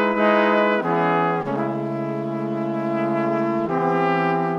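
Instrumental background music with brass-like sustained notes, the chord changing roughly every second or two.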